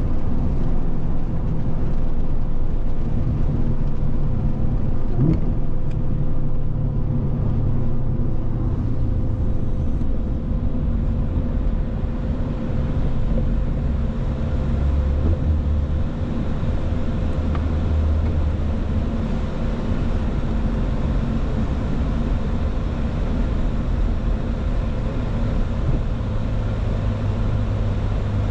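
Track car's engine running at moderate, gently shifting revs with steady road noise, without hard revving or sharp acceleration.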